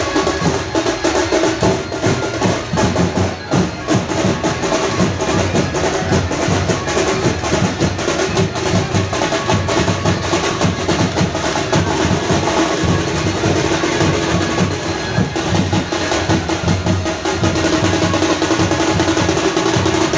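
Street band playing a loud, fast teenmaar drum beat for dancing, with a steady held note over the drums that grows stronger in the second half.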